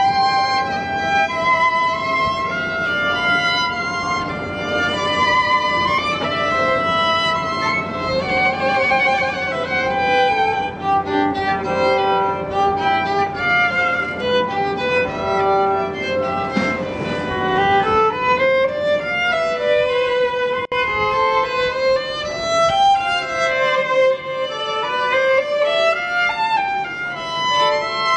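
Two violins playing a bowed duet, two melodic lines moving together in continuous notes.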